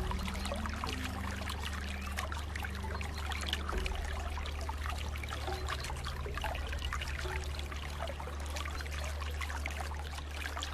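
Water trickling and pouring steadily with many small splashes, over a low steady hum.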